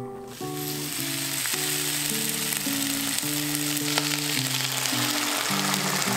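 Garlic scapes sizzling in hot oil in a frying pan: the sizzle builds about half a second in and stays steady. Soft background music plays under it.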